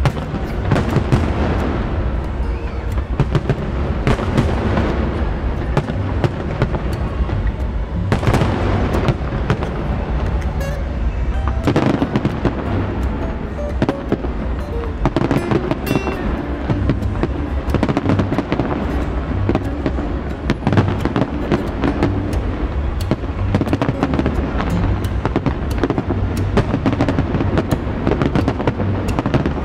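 Aerial fireworks display: many shells bursting in quick succession, sharp bangs and crackle overlapping into a continuous low rumble.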